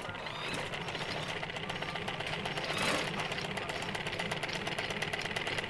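Household sewing machine running steadily, stitching a seam along a shirt's neckline with a rapid, even clatter of needle strokes.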